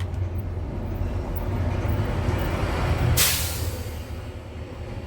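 Low engine rumble of a vehicle growing louder, then a sudden loud hiss about three seconds in that fades away over about a second.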